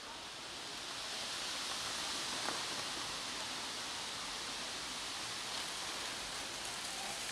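A steady hiss of noise that grows a little louder over the first two seconds and then holds, with one faint click about two and a half seconds in.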